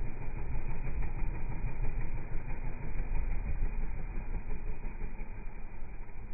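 Can-Am Renegade 800 ATV's V-twin engine running under throttle as it ploughs through a puddle, with water spraying and splashing. The noise eases slightly near the end as the quad moves off across the grass.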